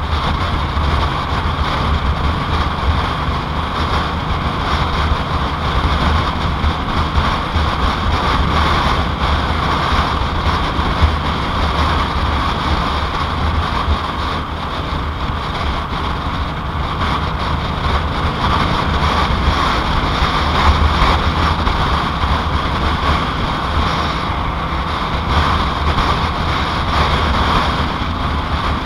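2007 Yamaha Royal Star Tour Deluxe's V4 engine running steadily while the motorcycle is ridden, with wind rushing over the microphone.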